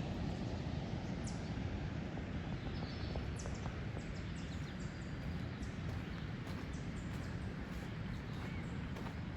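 Woodland outdoor ambience: a low, steady rumble of wind on the microphone, with a few faint bird chirps.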